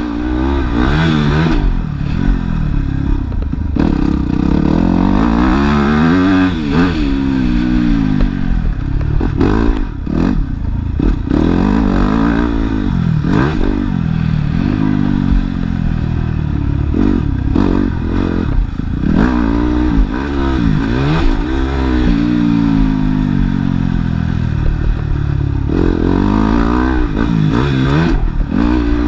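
Motocross bike engine heard from on board, revving up and falling off again and again as the rider opens and closes the throttle through the turns and straights of a dirt track.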